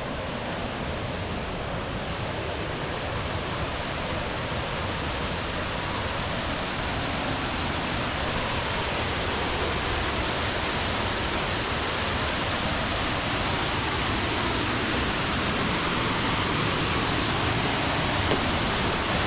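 Waterfall rushing in a steady, dense wash of water noise that grows gradually louder. The fall is running full after a night of rain.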